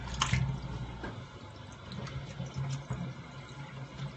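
Kitchen faucet running a steady stream into a stainless steel sink while a dog is bathed, with a short splash near the start.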